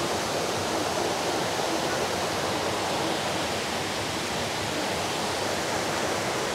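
Flowing water rushing steadily, an even hiss with no let-up, as from a stream.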